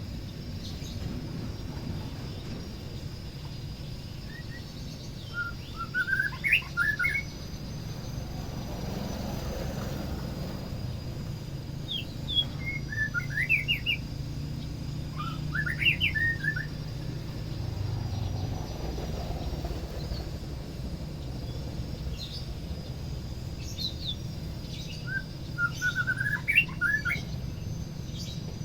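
White-rumped shama singing in four short phrases of quick, rising whistled notes, over a steady low background rumble.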